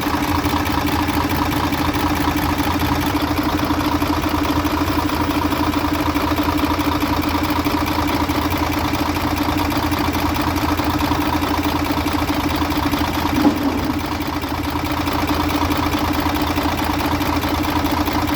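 Mercedes Actros truck diesel engine idling steadily, with one short knock about two-thirds of the way through.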